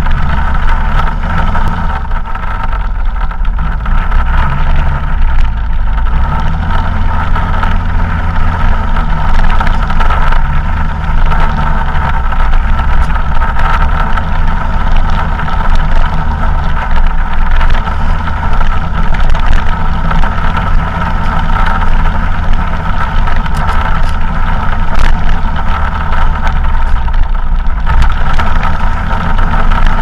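Arctic Cat vehicle driving at a steady pace, its motor holding a constant whine over a heavy low rumble of wind and bumps on the hood-mounted camera.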